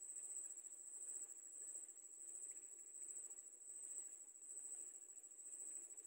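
Steady high-pitched insect chorus, a continuous faintly pulsing shrill that does not break.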